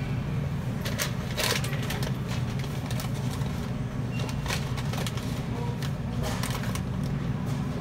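Bags of coffee rustling and knocking against a store shelf as they are stocked by hand, a few short crinkles over a steady low hum.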